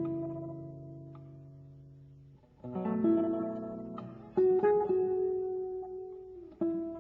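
Guitar music: plucked chords and notes that ring and fade away, with fresh chords struck about two and a half, four and a half and six and a half seconds in.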